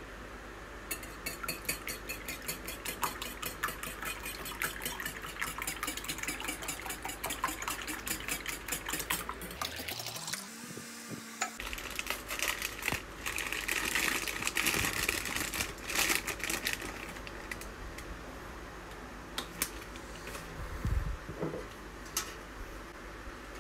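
Wire whisk beating egg yolks in a glass bowl, a rapid even clicking of about four or five strokes a second. After a short break, paper wrapping crinkles as a piece of cheese is unwrapped, then a few light knocks.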